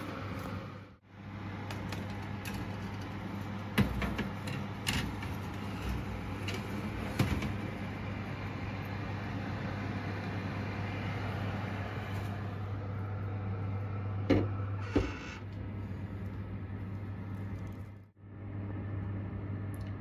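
Steady low hum of a fan oven running, with a few sharp metal clinks and knocks as a baking tray is set onto the oven rack and the door is handled.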